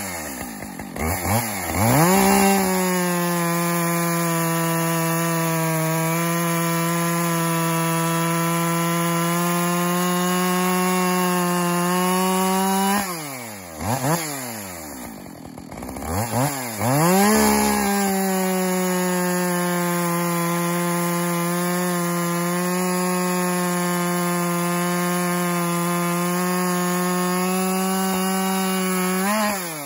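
Husqvarna 572XP two-stroke chainsaw with a 32-inch bar, a new saw still being broken in, revved and held at full throttle cutting through a log for about ten seconds. The revs drop and blip briefly, then it goes back to full throttle for a second cut of about twelve seconds before dropping off near the end.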